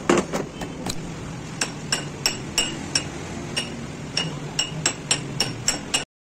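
Hammer blows on steel, each with a bright metallic ring, about three a second, as the king pin is driven in a Hino truck's steering knuckle clamped in a vise. The sound cuts off suddenly near the end.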